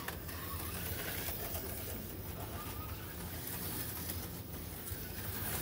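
HO-scale slot cars running laps on a plastic track, their small electric motors making a steady whir.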